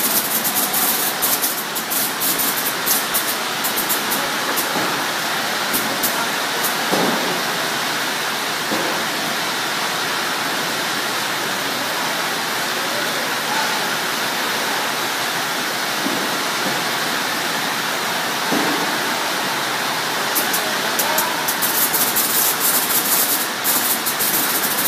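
Cranberry optical sorting line running: a steady mechanical hiss and rumble, with bursts of rapid sharp clicks near the start and again over the last few seconds.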